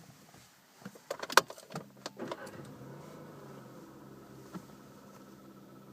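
Several sharp clicks and knocks in a Skoda Octavia A7, then a steady electric hum with a faint whine that starts about two seconds in and keeps running.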